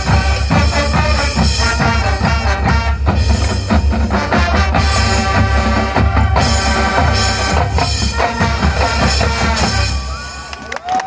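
Marching band playing: brass over a drumline and pit percussion with bass drum, loud and full, until the music drops away about ten seconds in.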